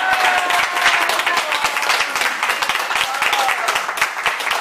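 A small group of people applauding, with dense, irregular hand claps throughout and a few voices calling out over them.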